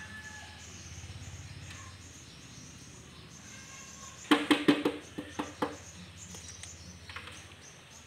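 Woven bamboo basket knocking against the rim of a plastic pot, a quick run of about eight knocks in a second and a half, about halfway through, each with the same hollow ring.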